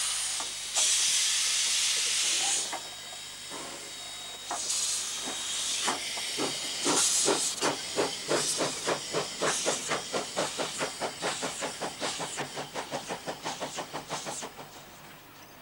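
Narrow-gauge steam tank locomotive D17 No. 268 hissing loudly as steam blows from its cylinder drain cocks, then setting off: its exhaust chuffs come quicker and fade as it pulls away.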